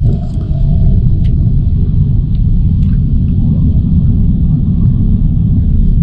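Loud, steady low rumble of road and wind noise inside a vehicle driving at highway speed.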